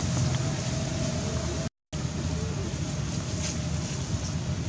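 Steady low rumbling background noise that drops out completely for a moment just under two seconds in, then carries on.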